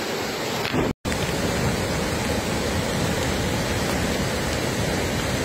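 Muddy floodwater rushing: a steady, unbroken water noise that cuts out for an instant about a second in.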